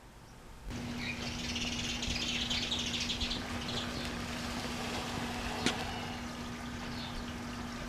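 Birds chirping and twittering for a few seconds, over a steady low hum, with a single sharp click a little before the end.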